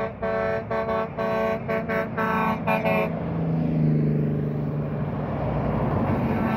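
A vehicle horn sounding a quick series of short blasts, the last few pitched a step higher. After about three seconds it gives way to a heavy truck passing close on the highway, its engine drone rising and then falling in pitch.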